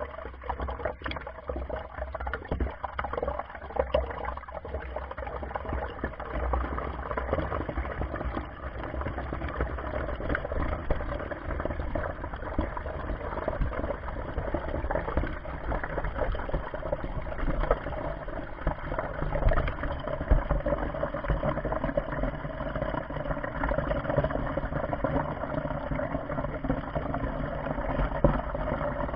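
Water churning and gurgling with a steady low rumble, with a few small clicks in the first seconds.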